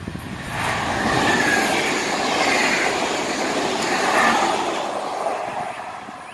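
Stadler FLIRT electric multiple-unit commuter train passing close by: a rush of wheel and rail noise that swells about half a second in, peaks near four seconds, and fades as the train moves away.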